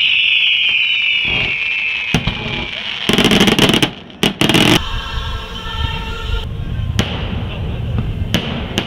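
Aerial fireworks shells bursting overhead at close range. A high hiss falls in pitch and fades over the first three seconds. Two loud dense bursts come about three and four seconds in, and single sharp bangs follow near the middle and end.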